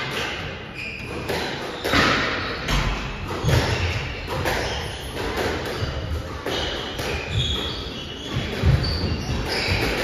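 Squash rally in a court: sharp racket strikes and the ball thudding off the walls, roughly one to two hits a second, echoing in the hall, with short high squeaks in the second half.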